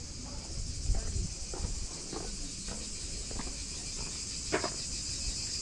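Steady, high-pitched chorus of insects in the surrounding trees, with a low rumble on the microphone and a few short, soft knocks spaced about half a second to a second apart.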